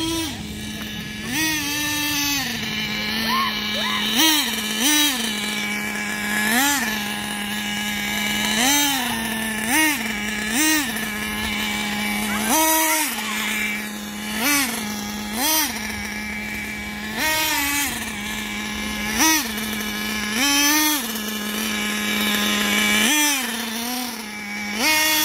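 Small nitro glow engine of an RC buggy holding a steady idle, revved in short throttle bursts every second or two, each rising in pitch and dropping back to idle.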